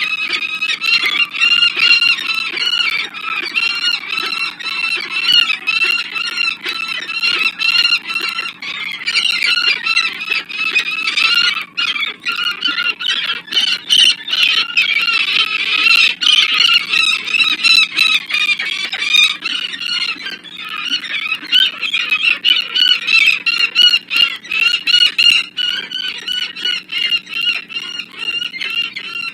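Peregrine falcons calling without pause during a territorial fight between males: a rapid, unbroken run of repeated call notes.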